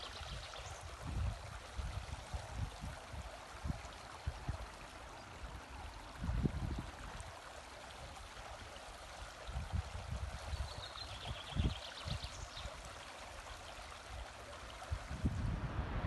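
Shallow stream babbling over stones and sand, with gusts of wind buffeting the microphone. A bird trills briefly about ten seconds in.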